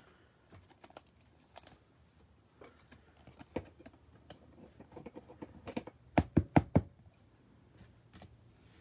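Trading cards being handled and sorted on a table, with light scattered clicks and rustles, then four quick knocks in a row a little after six seconds in, the loudest sound.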